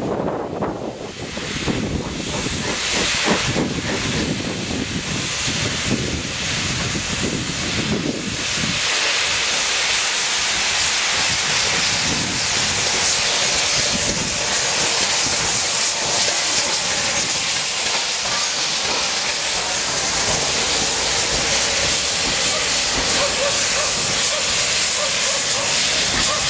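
Steam locomotive letting off a steady, loud hiss of escaping steam that comes in about eight seconds in, after a stretch of low rumbling.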